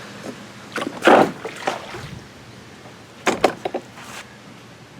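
A few sharp knocks and clatters, the loudest about a second in, then a quick run of four or five raps a little past three seconds.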